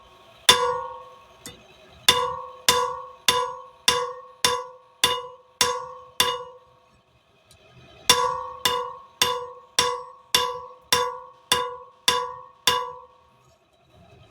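Hand hammer striking steel bar stock on an anvil while forging it flat, each blow ringing with a clear metallic tone that dies away. A run of about eight steady blows, a pause of over a second, then a second run of about nine, nearly two blows a second.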